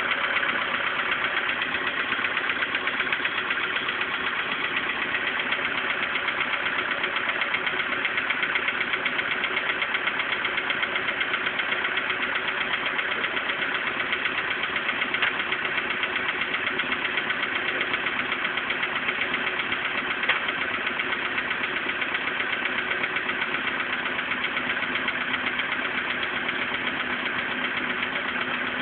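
Volkswagen Polo Sedan petrol engine running steadily with a rapid, even knock: the worn piston group that the owner is about to replace.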